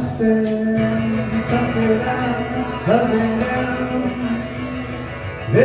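A live song with guitar accompaniment and a sung melody of long held notes. Each note slides up into pitch, three times.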